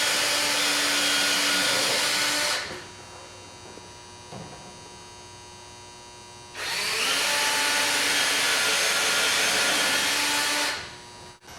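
Electric drill boring pilot holes into a wooden wall stud, two separate runs: the first stops about two and a half seconds in, the second starts about six and a half seconds in and stops near the end.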